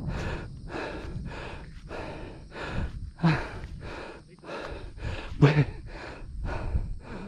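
A hiker's heavy, quick breathing from climbing a steep hill, about two breaths a second, with two louder voiced gasps about three and five and a half seconds in, over a low rumble.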